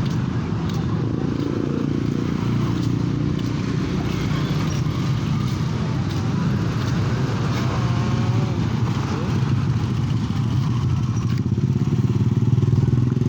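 A motor vehicle engine running steadily, a continuous low rumble that grows a little louder near the end, with faint voices in the background.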